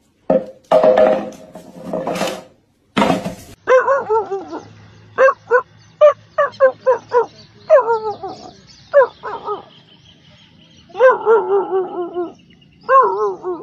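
Dogs barking and yelping in a run of short, sharp calls, with a longer wavering howl-like call about eleven seconds in. A few noisy bursts come first, in the opening seconds.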